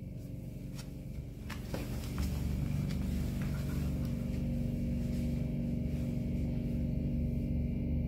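A steady low mechanical hum with several fixed tones in it, growing louder about two seconds in and then holding steady. It is the unexplained noise heard next to the shower and toilet of a motel bathroom.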